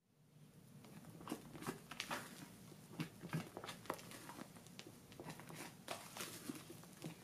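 Spatula folding meringue into coffee sponge batter in a glass bowl: soft, irregular wet squelches and light scrapes against the glass, a few a second.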